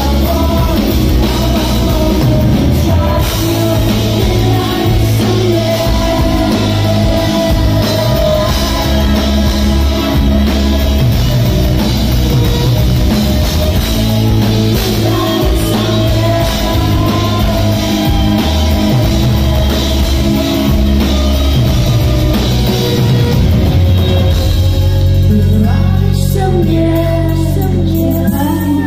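A live rock band with a female lead singer playing: drums, electric guitar, keyboards and a sung melody with backing vocals. Near the end the band holds one long low chord.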